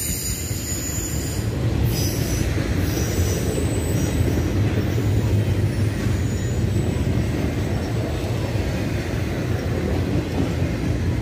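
Train rolling past, its wheels making a steady low rumble on the rails, with a faint high wheel squeal over the first few seconds.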